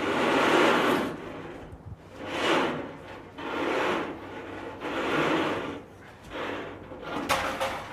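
Retractable shade-cloth curtain with pine rods being pulled out along stainless steel wire ropes: about six sliding, rustling pulls, a little over a second apart.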